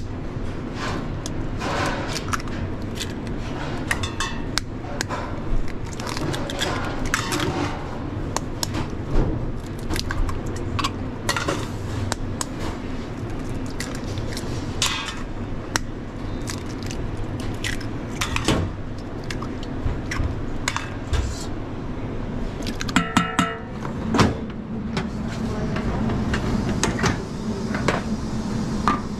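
Eggs being cracked on the rim of a stainless-steel bowl, with repeated sharp taps and clinks of shell on metal over a steady kitchen hum.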